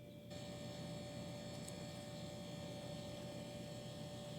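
Faint steady hum, with one clear tone and several fainter high tones over a light hiss, switching on about a third of a second in.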